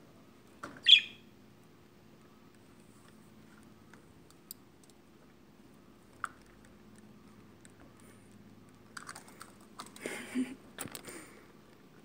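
A budgie gives one short, sharp chirp about a second in, then a few scattered clicks from beak and claws on the perch and phone, with a flurry of rustling and clicking near the end.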